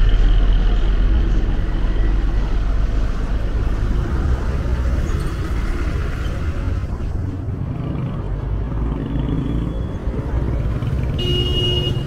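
Urban street traffic: motor vehicles passing with a steady low rumble, loudest at the start and easing slightly. Near the end a brief high-pitched tone sounds over it.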